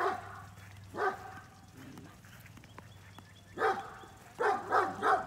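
Great Danes barking at the gate in short bursts: a single bark about a second in, then a flurry of barks near the end.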